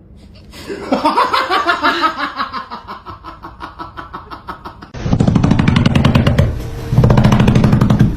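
Laughter in rapid, rhythmic pulses, becoming much louder and harsher about five seconds in.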